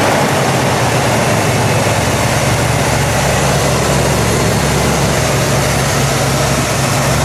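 The 1982 Pontiac Trans Am's factory 305 V8 idling steadily just after starting, with an even, unchanging low engine note.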